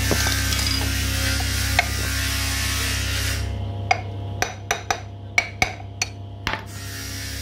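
Sharp metallic taps and clinks, about eight in three seconds at an irregular pace, from metal tools working on a Honda Activa scooter's gearbox casing during fitting. Before them, a steady electrical hum and hiss that drops away about three and a half seconds in.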